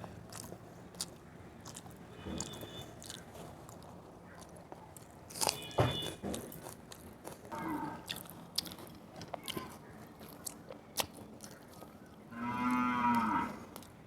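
Close-miked mouth sounds of someone eating: chewing, with many short wet clicks and smacks. About twelve seconds in comes a louder pitched hum lasting about a second.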